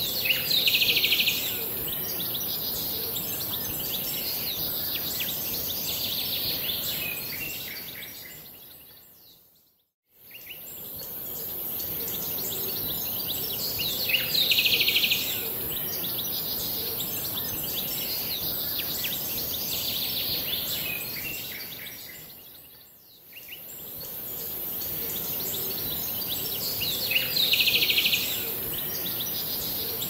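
Birds chirping over a steady background hiss. A cluster of louder chirps comes about every thirteen seconds, and twice the whole sound fades almost away and then swells back, as a repeating loop of bird ambience would.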